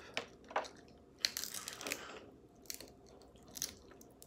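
Close-up eating of crab legs: chewing crab meat and handling the shells, a scattered series of soft crunches and sharp clicks.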